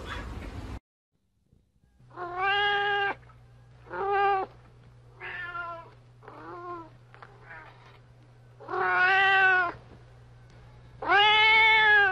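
A cat meowing six times, each drawn-out meow lasting half a second to a second with a gap of a second or so between them. The last two meows are the longest and loudest.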